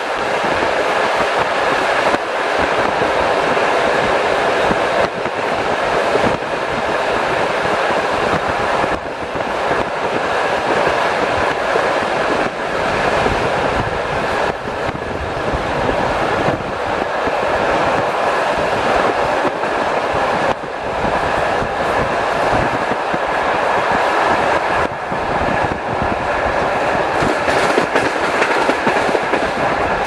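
Passenger train carriage running at speed: a steady rumble of wheels on rails with frequent clicks as the wheels pass over the track.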